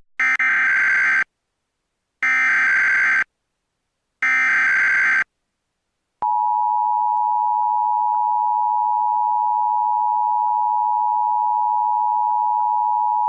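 Emergency Alert System broadcast for a required monthly test: three bursts of SAME digital header data, each about a second long with a second of silence between them, a harsh buzzing screech. About six seconds in, the steady EAS attention-signal tone starts and holds.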